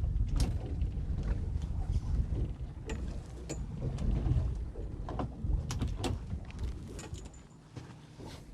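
Low rumble of wind and water around a small boat, with scattered knocks and clicks on the boat, easing off toward the end.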